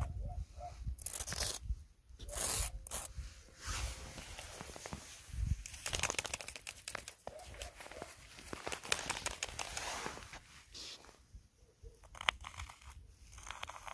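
Footsteps crunching through snow, irregular crunches with a denser stretch of crackling in the middle.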